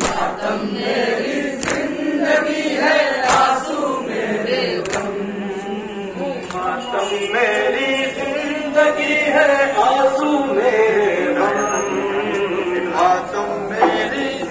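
A crowd of men chanting a noha, a Shia mourning lament, together in unison. Sharp slaps of hands striking chests in matam keep time, about one every second and a half during the first five seconds.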